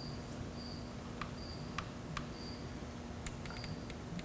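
Faint clicks and taps of hands working a Can-Am Spyder's plastic handlebar switch housing open off its clamp. Under them is a low steady hum and a faint short high chirp repeating about every half second.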